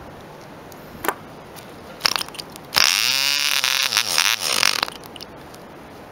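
Half-size replica ED Bee Mk 1 0.47 cc model diesel engine being hand-flicked to start: two sharp clicks from flicking the propeller, then about three seconds in it fires and runs for roughly two seconds, its pitch sweeping up and wavering, before it cuts out.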